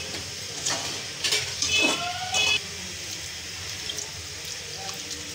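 A few metallic clinks, then water poured from a steel jug into an aluminium cooking pot of potato, pea and mince curry, a steady splashing pour.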